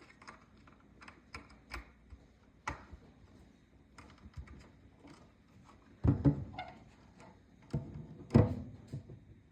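Light plastic clicks and taps from handling a hardwired smoke alarm as it is reconnected, with a few louder knocks and thumps in the last few seconds. The alarm itself does not sound.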